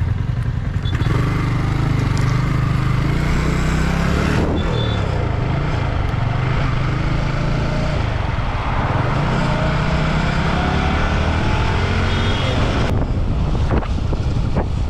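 Yamaha R15 V4's 155 cc single-cylinder engine running as the motorcycle is ridden and picks up speed. Its note dips and climbs again a few times.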